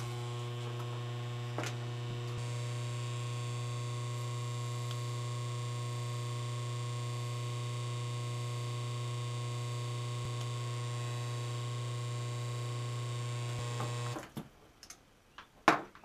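A salvaged 3/4 hp washing-machine induction motor switched on and running unloaded with a steady electrical hum at about 1860 RPM, showing the motor works. It is switched off about 14 seconds in, and the hum dies away.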